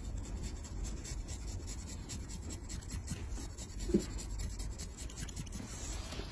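A flat metal blade scraping thick dead skin and callus off a heel: a quick run of short, dry scratching strokes. There is one brief, louder knock about four seconds in.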